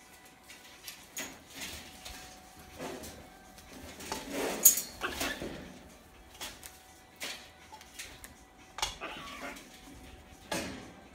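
Rubygold macaw moving about on the top of its metal wire cage and among its toys: scattered clicks, clinks and rustles, loudest about four to five seconds in, with a few brief soft sounds from the bird.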